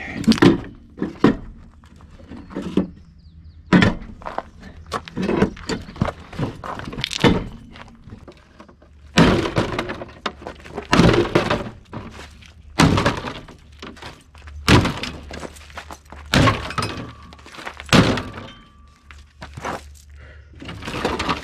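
Repeated sledgehammer blows knocking a metal generator junction box and its bracket loose from a motorhome's frame: a long series of sharp knocks and breaking crunches, irregularly spaced, about one a second.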